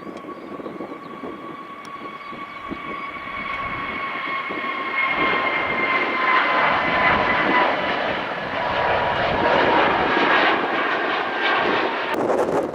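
Jet airliner's engines growing steadily louder as it passes close by: a rushing roar with a steady high whine that sags slightly in pitch. The sound changes abruptly near the end.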